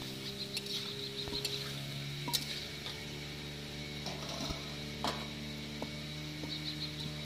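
Fish frying in oil in a steel kadai, with a few scattered clicks and scrapes of a metal spatula against the pan, over a steady low hum.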